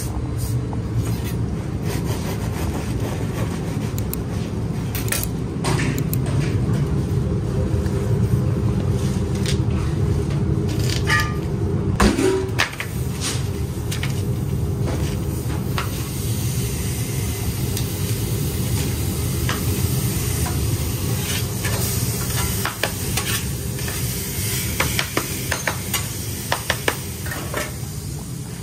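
A steady low hum of restaurant kitchen equipment, with scattered clicks and light clatter of handling and one sharper knock about halfway through. From about the middle on, a soft sizzle as an opened sub roll toasts on a flat-top griddle.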